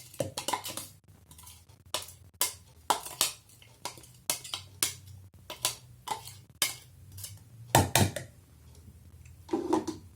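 Kitchen utensil transferring chopped onion into a small jar: irregular clinks, taps and scrapes against the jar, with a louder knock about eight seconds in and another near the end.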